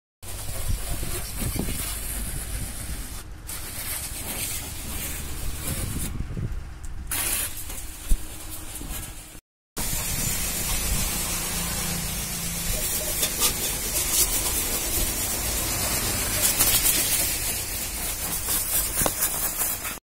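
Pressure-washer water jet spraying a car, a steady hiss of spray. It cuts out abruptly for a moment about halfway, then carries on.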